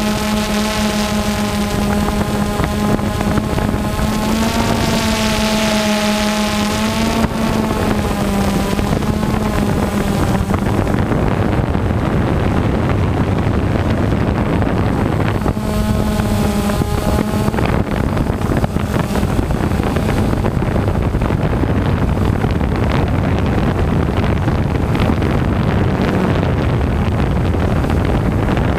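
Quadcopter drone's motors and propellers whirring steadily, their whine wavering in pitch a couple of times as the drone manoeuvres, with wind rushing over the microphone.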